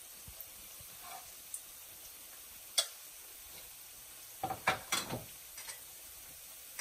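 Oil heating in a wok, a faint steady sizzle with a sharp click about three seconds in and a short cluster of crackles just after four seconds.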